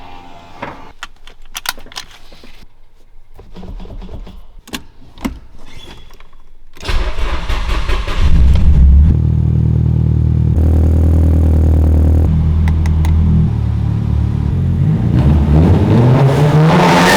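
A few light clicks and rattles, then the Nissan Silvia S14's engine starts about seven seconds in with a loud flare, settles into a steady idle, and near the end revs up, rising in pitch.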